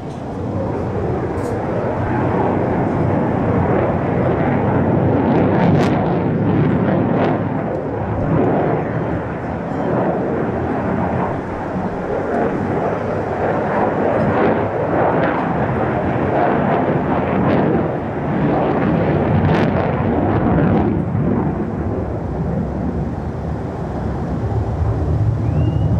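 Jet noise from a Lockheed Martin F-35A Lightning II's single Pratt & Whitney F135 afterburning turbofan in display flight. A loud, continuous rush of noise that builds over the first couple of seconds, then swells and eases as the jet manoeuvres.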